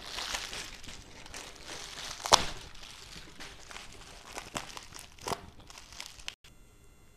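Plastic bubble wrap crinkling and rustling as hands handle a wrapped porcelain plate, with one sharp crackle about two seconds in. The rustling stops abruptly about six seconds in.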